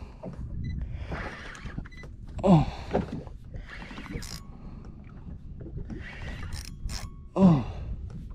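A spinning reel being cranked in repeated bursts as a hooked fish that refuses to come up is fought on a light jigging rod, over a steady low rumble. A person's voice gives two short falling cries, about two and a half seconds in and again near the end.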